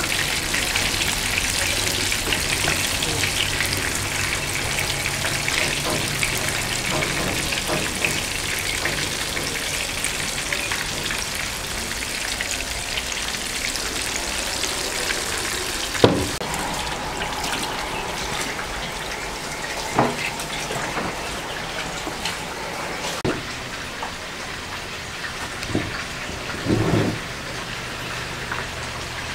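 Meatballs sizzling and crackling in hot oil in a frying pan, a dense crackle that slowly eases. A few short sharp knocks come in the second half.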